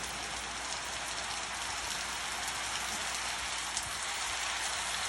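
Steady rain falling and pattering on surfaces, an even hiss with scattered drop ticks.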